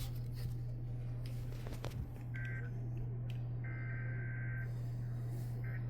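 Emergency Alert System SAME header: faint, buzzy data bursts of two alternating high tones, the longest lasting about a second, over a steady low electrical hum.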